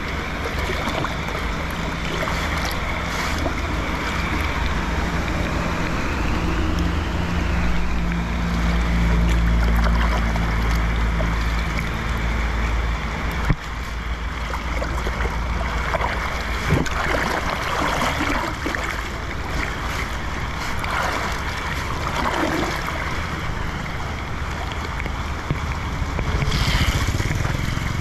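Muddy rainwater rushing and gurgling into a small drain opening under a concrete curb, with rain pattering on the flowing water and wind buffeting the microphone. A low hum swells about a third of the way through and fades again.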